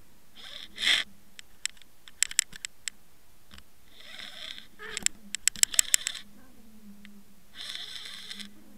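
Sounds picked up by a camera underwater on a fishing line being hauled: scattered sharp clicks and knocks with three short bursts of hiss, over a faint steady low hum.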